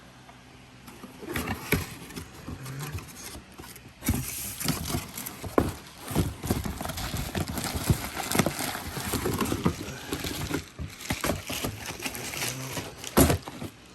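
Exhaust packaging being handled and opened by hand: rustling, with a dense run of clicks and knocks from about four seconds in and a sharp knock near the end.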